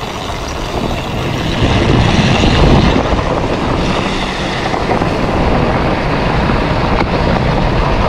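Dirt bike engine running while riding down a long, steep dirt track, mixed with wind and riding noise on the helmet-mounted microphone. It gets louder about one and a half seconds in and then holds steady.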